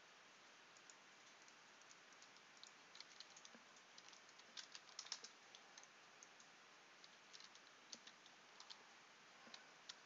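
Faint computer keyboard keystrokes: scattered taps with a quick cluster about halfway through, over a low steady hiss.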